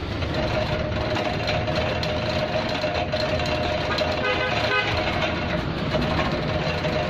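Ginger being sliced in a vegetable slicing machine, a steady mechanical running noise with a steady whine. A short horn-like toot comes about four seconds in.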